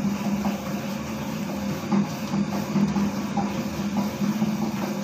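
Homemade dough mixer running with a steady motor hum, kneading donut dough in its steel bowl, with a regular knock about twice a second as the dough mass turns and strikes the bowl.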